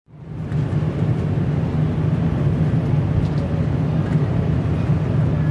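Steady road and engine noise inside a car driving on a highway: a low rumble with tyre hiss, fading in over the first half second.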